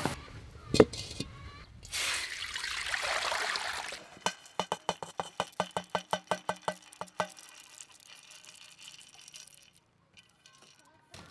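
Roasted peanuts pushed off a metal tray into a stone mortar. They make a run of quick pattering clicks, about four a second, for around three seconds, after a couple of seconds of steady hiss.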